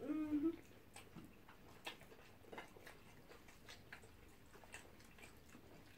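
Faint mouth sounds of people chewing fried plantain and egg: soft, irregular wet clicks and smacks. A brief hummed vocal sound comes at the very start.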